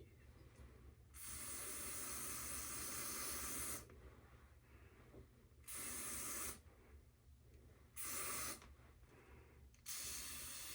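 Aerosol spray can hissing in four bursts: one long spray of about two and a half seconds, then three short ones.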